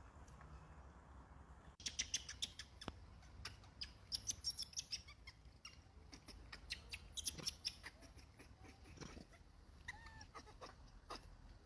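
Faint, irregular clicking and rustling for several seconds, then a monkey's two or three short, thin squeaks about ten seconds in.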